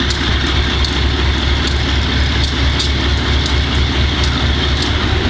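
GE B30-7 diesel-electric locomotive's V12 diesel engine running steadily with a deep, constant drone, with faint irregular clicks over it.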